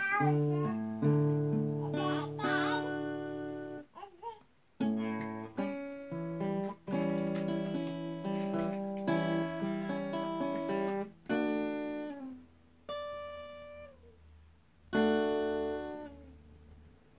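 Acoustic guitar played slowly, picking single notes and chords that ring out, with a few short pauses between phrases. A baby's voice babbles briefly twice in the first few seconds.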